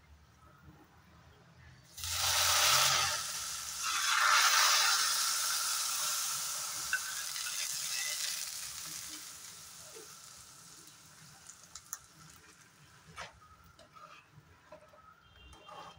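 Hot fat with fried nuts poured into a pot of milky vermicelli, bursting into a loud sizzle about two seconds in that slowly dies away over several seconds. Then a few light clinks of a spoon scraping the pan and stirring the pot.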